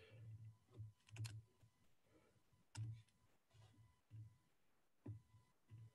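Faint, scattered computer keyboard keystrokes and clicks, a few irregular taps a second apart, over near silence.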